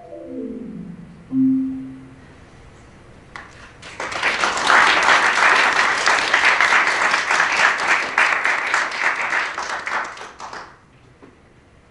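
A marimba ends a piece with a quick run of notes falling to a low final note that rings on. Then an audience applauds for about seven seconds, starting about four seconds in and dying away near the end.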